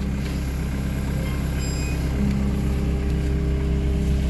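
Vehicle engine running steadily, heard from inside the cab while driving: a continuous low drone with a few steady tones above it.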